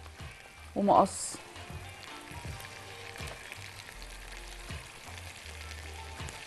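Liver pieces frying with orzo and tomato paste in a pan, a steady sizzle.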